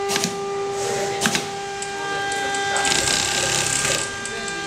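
Industrial automatic pattern sewing machine stitching through a clear plastic template. It runs with a steady whine and a rush of mechanical noise that swells about three seconds in, plus a couple of sharp clicks in the first second and a half.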